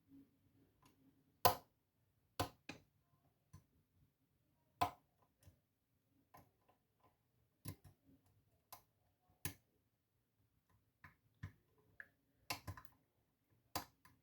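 A lock being picked: a dozen or so light, irregular metal clicks as the pick works the pins, with a quick cluster of clicks near the end.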